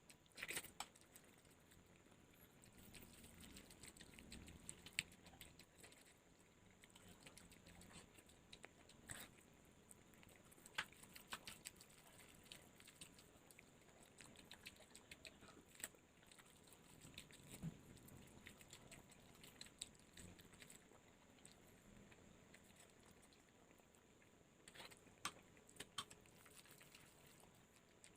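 Quiet eating of fried instant noodles: soft chewing with scattered sharp clicks at irregular intervals.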